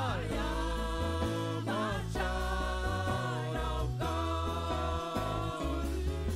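Live church worship music: a group of singers carrying a sustained melody together over a band with long held bass notes.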